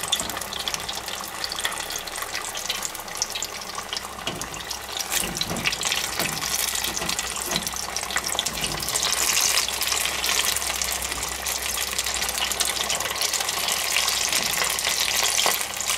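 Rice-paper spring rolls deep-frying in hot oil in an electric deep fryer: a steady, dense sizzle and crackle of bubbling oil.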